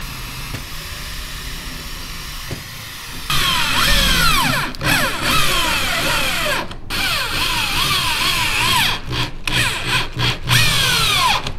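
Power drill fastening the lid to the boat deck. It runs in spurts, stopping and restarting several times, and its whine slides down and back up in pitch as the trigger and load change. It is quieter and steadier for the first three seconds, then louder.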